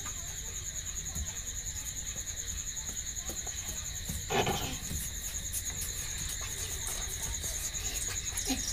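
Crickets chirping at night, a steady high-pitched pulsing trill, with one short louder noise about halfway through.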